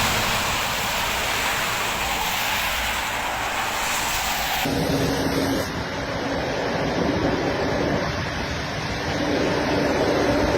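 Steady rushing noise of wind on the microphone. About halfway it cuts abruptly to a lower, steady rumble of vehicle engines with a faint hum.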